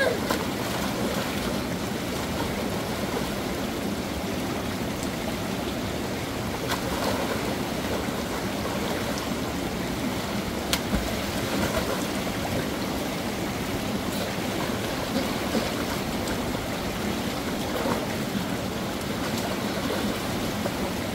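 Steady rushing of a shallow stream's flowing water, with a brief sharp knock about eleven seconds in.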